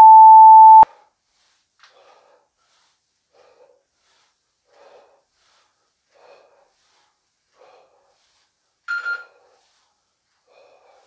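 An interval timer's loud steady start beep of about a second opens the work interval. It is followed by soft, even breaths about every second and a half, in time with air squat reps, with one louder breath near the end.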